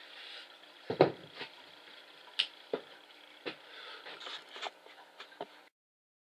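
Handling noise: a heavy knock about a second in, then several light clicks and knocks as gear and the camera are handled. The sound cuts off abruptly near the end.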